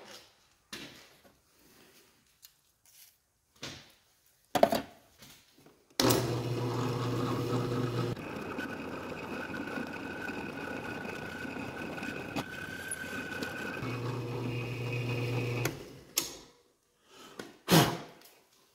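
Drill press running with an offset boring head taking a light cut in a metal hinge ear, sneaking up on the final hole size. It starts suddenly about six seconds in as a steady hum with a thin whine, runs for about ten seconds, and stops; a few clicks and knocks of handling come before and after.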